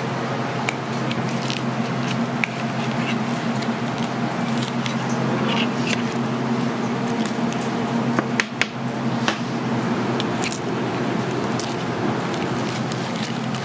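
Fluted metal cake tins clicking and scraping against a knife and a steel sheet pan as baked coconut cakes are pried out and lifted. The loudest clinks come about eight to nine seconds in, over a steady low mechanical hum.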